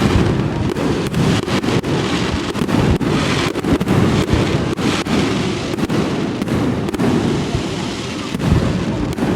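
Fireworks display: a dense, continuous barrage of shell bursts, the bangs coming close together and overlapping with crackling between them.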